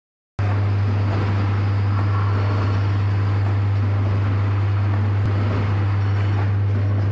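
A loud, steady low electrical hum that starts abruptly just after the beginning and holds an unchanging level, with faint workshop noise and a few light clicks under it.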